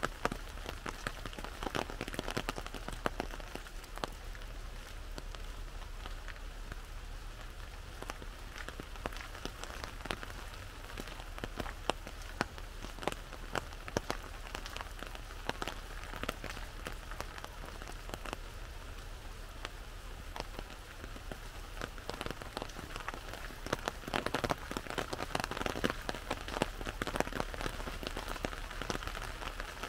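Rain falling on an umbrella held overhead: a steady patter made of countless separate sharp drop ticks, a little denser in the last few seconds.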